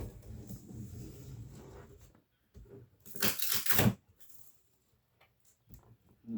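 Packaging being handled and torn open: a low scraping rustle for about two seconds, then a loud tearing rip about three seconds in that lasts under a second, with a few small knocks near the end.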